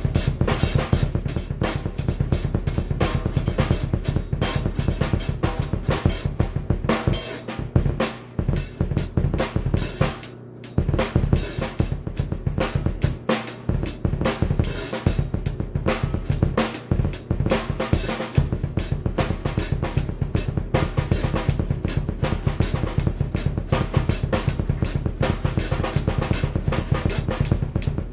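Drum kit played fast with double bass drum pedals: a dense, rapid stream of kick drum strokes under snare hits and cymbals, thinning briefly about ten seconds in.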